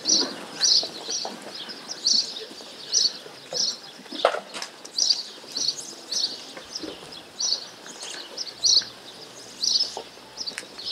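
A small bird chirping over and over, one short high chirp about every three-quarters of a second, with a single brief knock about four seconds in.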